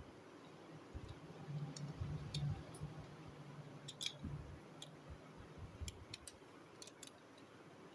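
Small plastic transforming toy car being folded by hand: scattered light clicks as its plastic parts snap and knock into place, over soft handling rubs.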